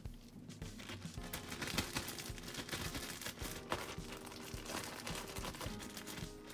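Plastic food bag crinkling and rustling in irregular crackles as it is handled to coat cucumber pieces with calcium powder.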